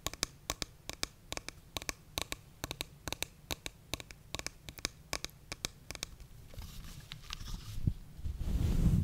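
Close-up ASMR tapping and scratching on a plastic doll figure held at the microphone: quick sharp clicks, several a second. Near the end the doll's microfiber mop hair is brushed over the microphone, a rustling that swells into a loud, low, muffled rumble.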